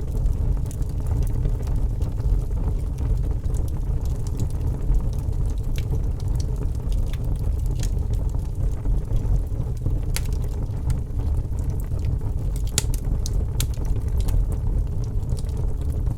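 Wood fire crackling in a fireplace: irregular sharp snaps and pops over a steady low rumble, with a few louder pops in the second half.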